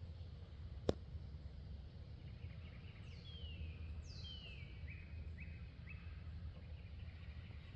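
Birds calling outdoors: two falling whistled calls about three and four seconds in, followed by a few short chirps, over a steady low rumble. A single sharp click about a second in.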